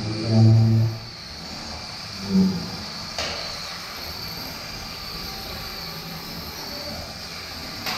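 Antweight combat robots fighting: a steady high-pitched whine runs throughout, and the bots hit each other sharply about three seconds in and again near the end. A short low droning tone sounds near the start and again around two seconds in.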